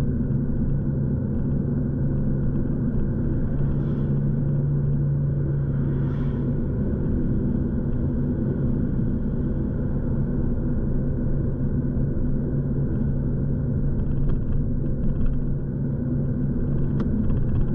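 Car driving at a steady speed, heard from inside the cabin: a steady low rumble of engine and tyres on the road, with a constant low hum. A single faint click near the end.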